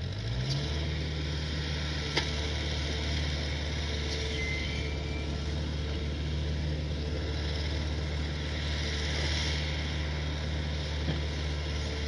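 Backhoe loader's diesel engine revving up in the first second, then running steadily at raised speed. A single sharp click sounds about two seconds in.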